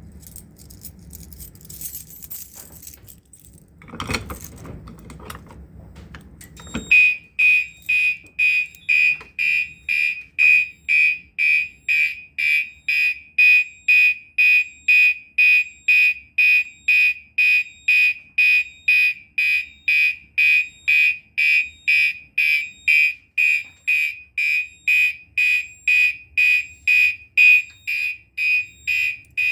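Rattling and a knock, then about seven seconds in a Gentex Commander 3 fire alarm horn set to its electromechanical horn tone starts sounding in march time: a loud, high horn pulsing about twice a second.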